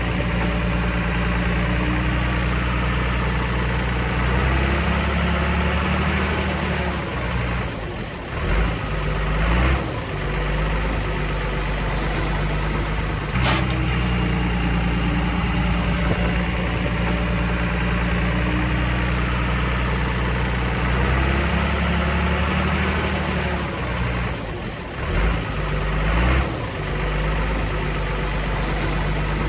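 Diesel engine of a small Komatsu D20P crawler bulldozer running steadily at work. Its note shifts and dips twice as the load changes, and a single sharp clank comes about a third of the way through.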